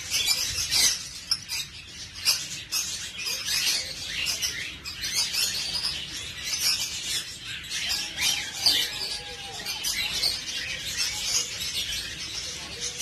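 Small birds chirping and twittering busily, many quick high-pitched calls overlapping throughout.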